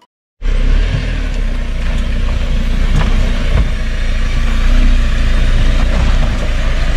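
Wind buffeting the camera microphone: a loud, steady, low rumble with a rushing hiss over it, cutting in abruptly about half a second in.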